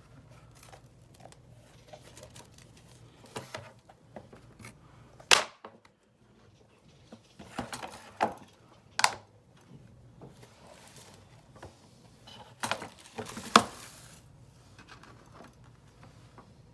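Apple Smart Keyboard cover being handled and folded out on an iPad: scattered soft taps and rustles with several sharp clicks, the loudest about five, nine and thirteen and a half seconds in.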